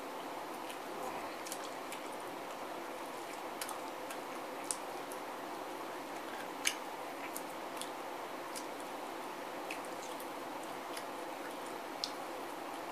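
A person eating chicken wings: scattered sharp, wet clicks and smacks of chewing and lips at uneven intervals over a steady background hiss, with one louder click about halfway through.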